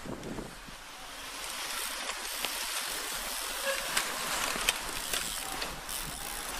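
Steady wind hiss on the microphone, with a few sharp clicks as cyclo-cross bikes ride past close by.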